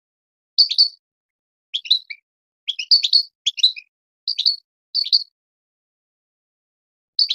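European goldfinch singing: short clusters of quick, high twittering chirps with silent gaps between them, a denser run about three seconds in, then a pause of about two seconds before the next phrase.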